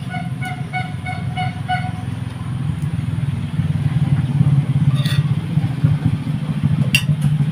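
A motor vehicle engine running steadily, growing louder a few seconds in, with a rapid pulsing tone in the first two seconds and two sharp clinks near the middle and near the end.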